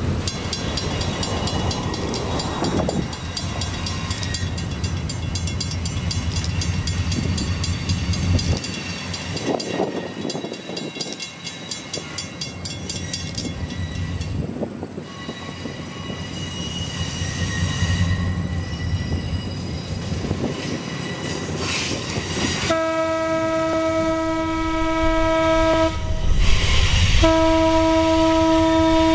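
Diesel passenger locomotive approaching with its engine rumbling, then sounding its air horn: a long blast starting about 23 seconds in, a short break, and a second blast near the end.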